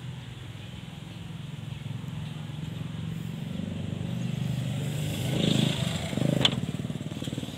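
Mitsubishi Canter's 4M40 2.8-litre four-cylinder diesel idling steadily, with a sharp knock near the end.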